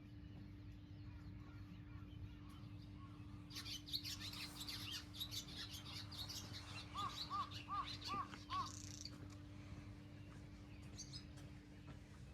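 Birds chirping and calling in a dense spell of quick chirps, with a run of five short, evenly spaced arched notes about seven seconds in, over a steady low hum.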